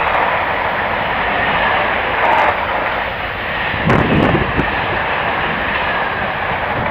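Container freight wagons running past at speed, with a loud, steady noise of wheels on rail. About four seconds in, a burst of low, rough buffeting comes in, typical of the train's slipstream hitting the microphone.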